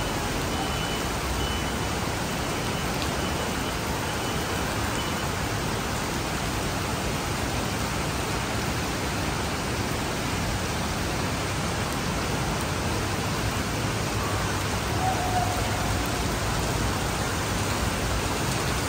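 Heavy rain pouring onto a paved city street, an even, unbroken hiss of downpour and splashing.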